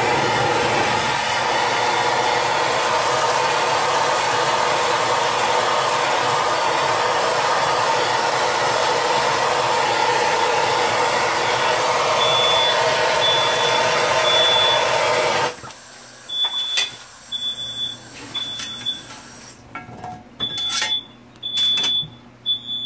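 Bernzomatic TS8000 blowtorch flame hissing loudly and steadily, then shut off a little after the middle. A smoke alarm beeps in repeating groups of three high tones, starting shortly before the torch stops and carrying on after it.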